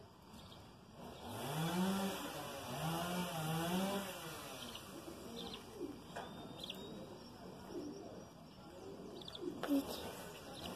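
A dove cooing in a low, rolling phrase for about three seconds, then more softly, with short high chirps from small birds scattered through and a sharp tap near the end.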